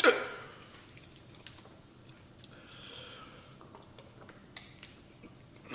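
A man's short, loud vocal cry that drops sharply in pitch, reacting to the burn of extremely hot chicken. After it comes a quiet room with faint sniffing, breathing and small clicks.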